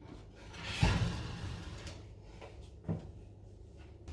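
Wooden crate being shifted over a wooden floor and set down with a heavy thump about a second in, followed by a lighter knock near three seconds.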